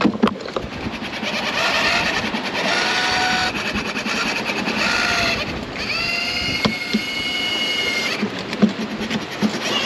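A small sailboat's gear creaking and squealing as it works in a seaway, with long high squeals lasting a second or two at a time and several sharp knocks, the loudest about seven and nine seconds in.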